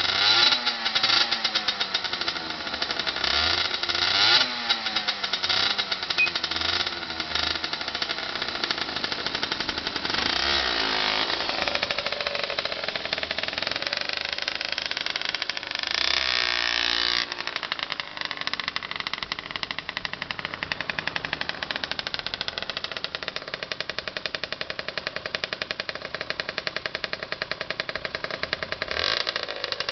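Two-stroke single-cylinder engine of a Honda CRM50 fitted with a bore-up cylinder, big carburettor and expansion chamber, revved up and down repeatedly. About halfway through it is held high for a second or so. It then settles to a steady, rapid pulsing and revs again near the end.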